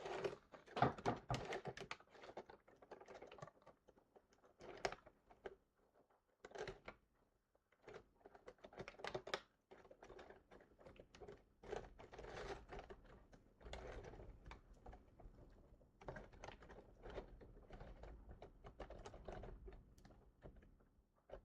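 Faint, irregular clicks and rustles of a small plastic vintage Luke Skywalker action figure being turned over and handled.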